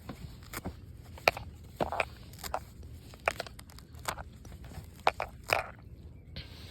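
Weeds being pulled out of gaps in a wooden deck: a string of short, irregular crunching snaps as stems and roots tear loose, a couple of louder ones near the middle and about five seconds in.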